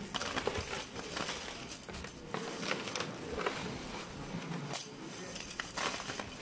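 Small aluminium jalousie corner locks clinking and rattling against each other as handfuls are dropped into a plastic bag, in irregular bursts of light metallic clicks.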